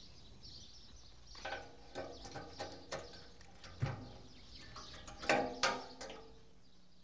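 Outdoor ambience with birds chirping, then a run of short knocks and brief pitched sounds in the middle seconds, loudest around the middle and again a little later.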